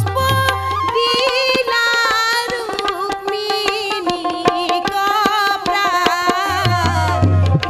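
A woman singing an Assamese folk song (lokageet) into a microphone, accompanied by tabla, with deep bass tabla strokes near the start and again near the end.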